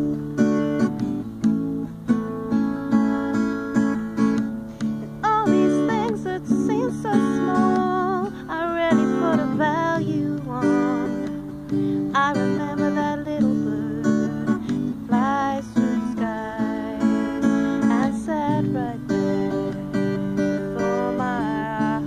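Acoustic guitar strummed in a slow ballad, with a woman singing over it from about five seconds in.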